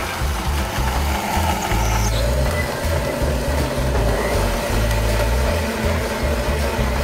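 Commercial countertop blender running at speed, churning a thick berry protein shake, with bass-heavy music playing over it.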